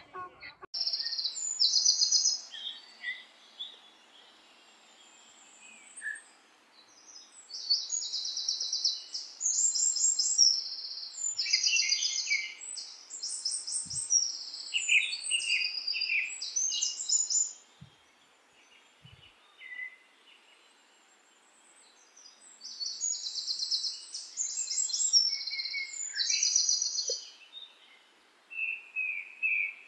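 Small birds calling in rapid, high trills that come in bursts of up to a second with pauses between, over a steady background hiss.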